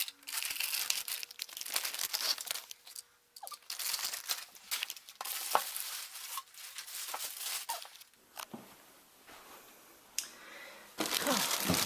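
Plastic packaging being crinkled and torn open by hand, in irregular rustling bursts with a few sharp crackles, dropping off for a couple of seconds before a loud burst of crinkling near the end.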